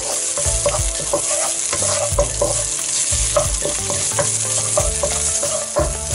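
Red curry paste sizzling in hot olive oil in a non-stick pan, with a steady hiss. A wooden spatula scrapes across the pan in quick repeated strokes, about two a second.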